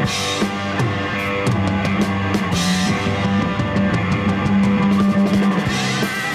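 Rock band playing a driving song: drum kit with cymbal crashes about three times, under a bass guitar's sustained low notes.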